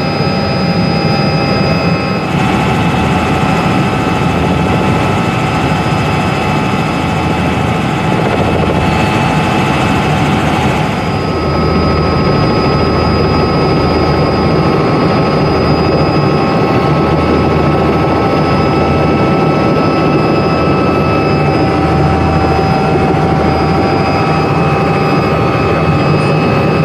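Small helicopter in flight, heard from inside the cabin: a loud, steady engine and rotor noise with a low pulsing beat and several steady high whining tones.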